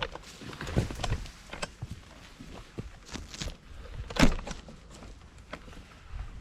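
Footsteps and rustling through undergrowth, with irregular crackles and low handling rumble on the microphone, and one louder knock about four seconds in.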